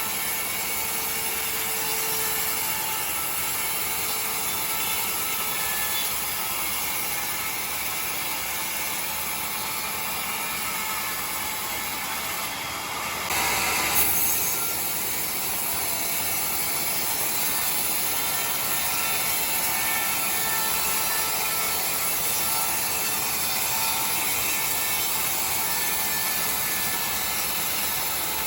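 Sawmill saw running steadily while cutting timber, with a brief louder surge about halfway through.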